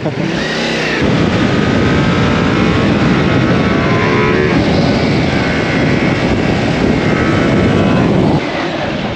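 Motorcycle being ridden at speed, its engine running under heavy wind and road noise. It gets louder about a second in as the bike pulls away, and eases off somewhat near the end.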